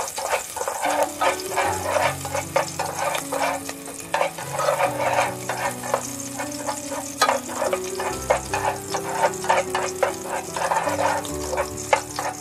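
Minced onion frying in hot annatto oil in a metal pot, sizzling and crackling, while wooden chopsticks stir it with frequent quick clicks and scrapes against the pot. Soft background music with held notes plays underneath.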